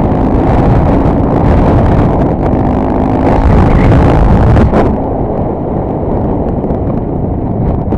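Honda Tornado 250 motorcycle's single-cylinder engine running, buried under heavy wind buffeting on the helmet-camera microphone. About five seconds in, the hiss eases and the sound gets slightly quieter.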